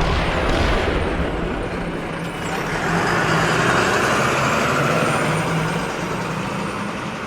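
A motor running steadily, with a low hum under a rushing hiss that swells and fades in the middle.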